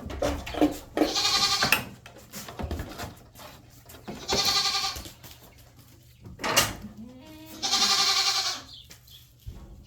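Dairy goats bleating: three long, quavering bleats about three seconds apart, with a few short knocks between them.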